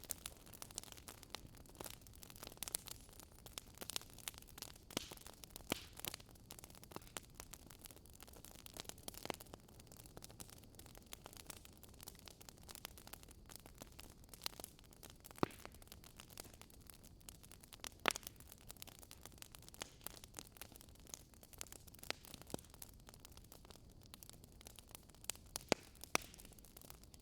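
Wood fire crackling in a fireplace: irregular sharp pops and snaps over a soft steady hiss, with a few louder pops scattered through.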